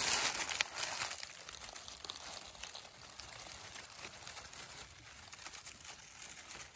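Dry grass stems and dead leaves rustling and crackling as a hand pushes through and parts them, loudest in the first second and then a steady run of small crackles.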